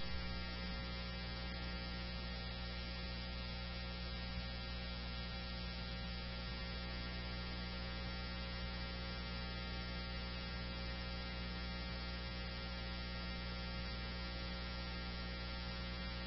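Steady electrical hum with a stack of overtones on a police-scanner radio feed, heard while no one is transmitting on the channel.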